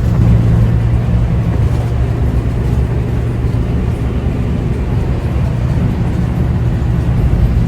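Engine running with a steady low hum under a continuous rushing noise.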